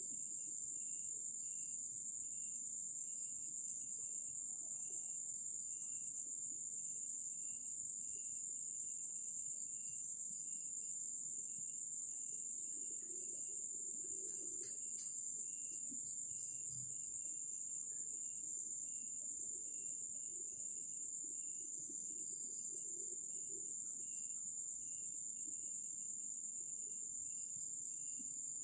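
Crickets calling at night: one continuous high, steady trill, with a lower chirp repeating evenly underneath. A few faint clicks come about halfway through.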